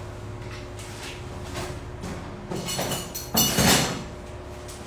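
Handling noises at a worktable: a few light knocks and rustles, with one louder rustle or scrape lasting about half a second near three and a half seconds in, as a plastic piping bag and utensils are picked up. A faint steady hum runs underneath.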